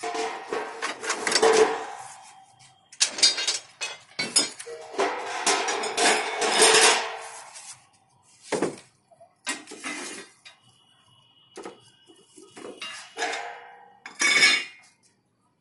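Aluminium dish-antenna parts (support sticks and mounting rings) clanking and rattling as they are handled and set down on a concrete floor, in several bursts of clatter with brief metallic ringing.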